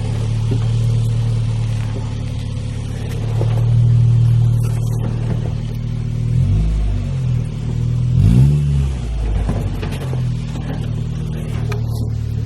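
Vehicle engine running steadily, its pitch rising and falling briefly twice partway through.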